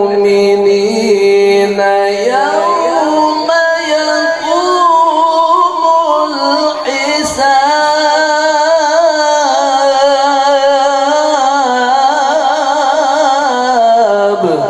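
A male Quran reciter holds one long, drawn-out note in melodic tilawah style. The pitch steps up about two seconds in, then wavers in ornamented trills until the note ends near the close.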